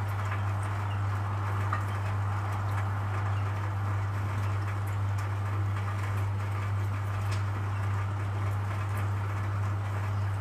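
Steady low hum with a faint hiss behind it and a few faint ticks.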